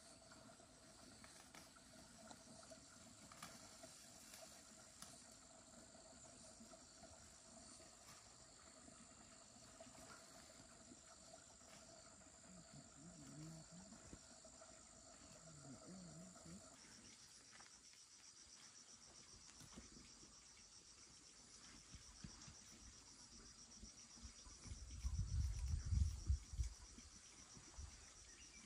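Faint, steady high-pitched chirring of insects such as crickets, with a second, lower steady drone that stops about two-thirds of the way through. Near the end comes a brief, louder low rumble.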